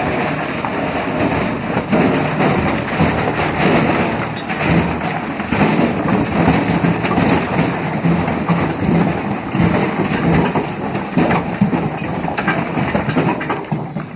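Isuzu CYZ dump truck's diesel engine running steadily as the hydraulic hoist tips the bed, with boulders sliding and tumbling out of the body in a continuous rattling with scattered thuds.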